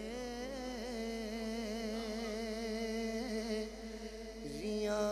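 A man singing a Punjabi naat into a microphone, holding one long wavering note for about four seconds before starting a new phrase near the end.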